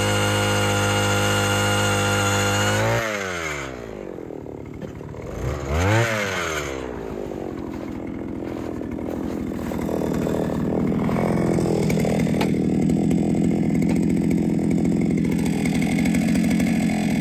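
Power ice auger drilling through lake ice at full throttle, its motor running at a steady high pitch. About three seconds in the motor is throttled down and the pitch falls. It is revved once briefly around six seconds, then keeps running at a lower steady speed.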